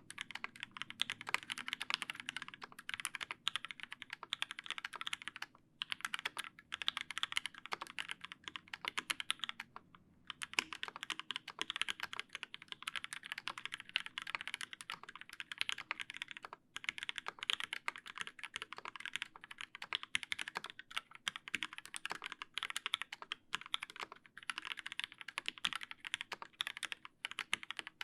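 Steady fast typing on a TGR Alice mechanical keyboard with lubed Linjar linear switches in a brass plate, capped with GMK keycaps. It is a dense stream of keystroke clicks, with short pauses about 6, 10 and 16 seconds in.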